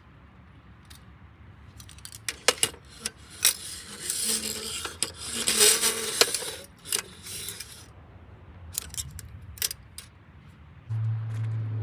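Small metal objects clinking and clattering as they are handled, with scattered sharp clicks and a denser rustling clatter in the middle. A steady low hum starts near the end.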